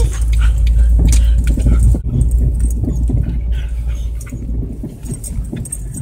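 Low rumble inside a car that dies away about four seconds in, with huskies shuffling about on the back seat, their collar tags jangling among scattered clicks and rustles.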